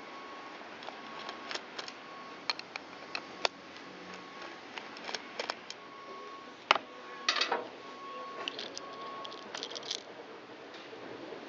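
Small clicks and a short scrape of a cheap replica string-trimmer carburetor being taken apart by hand. The sharpest click comes about two thirds of the way in, and the scrape follows right after it.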